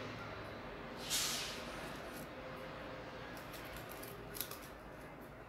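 Soft handling sounds of a doll's straw hat and fabric being held and adjusted by hand: one brief rustle about a second in, then a few faint clicks and light rustles.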